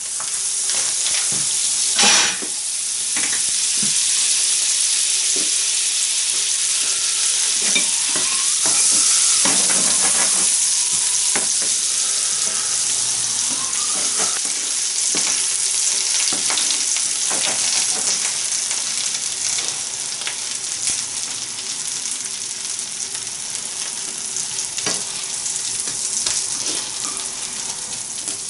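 Butter and hash browns of grated potato and onion sizzling steadily in a hot non-stick frying pan, with frequent taps and scrapes of a spatula against the pan as the patties are turned and pressed.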